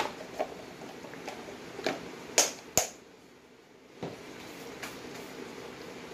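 Thick tomato pasta sauce simmering in a frying pan, with a low steady bubbling and a few sharp pops. The two loudest pops come close together about two and a half seconds in.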